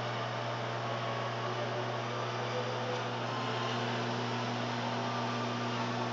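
LG microwave oven running on a cooking cycle: a steady low hum over an even rush of fan noise.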